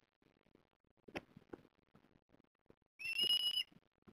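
An eastern osprey gives one high, steady call, lasting under a second, about three seconds in. Before it there is faint rustling and a single tap.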